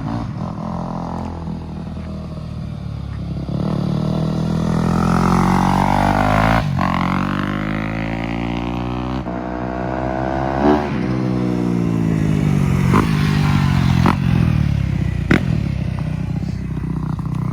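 2021 Yamaha YZ250F's 250 cc four-stroke single being ridden, its engine pitch rising and falling as the throttle is cracked at low revs, lugging it. It passes by close twice, about six and ten seconds in, and is loud.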